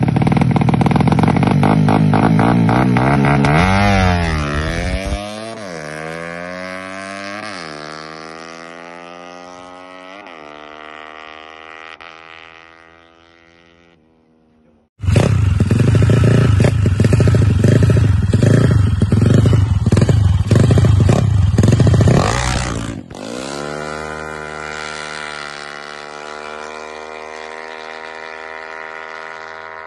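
Drag bike engine accelerating hard through the gears: the pitch climbs, drops at each shift and climbs again as the sound fades into the distance. After an abrupt cut a bike revs very loudly close by, then pulls away with its pitch rising steadily.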